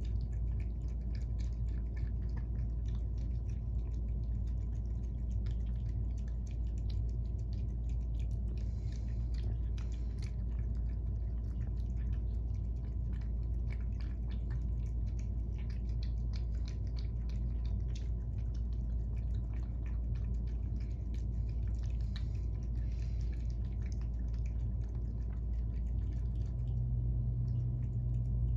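Two cats eating wet food from metal bowls: many small, irregular wet chewing and licking clicks over a steady low hum.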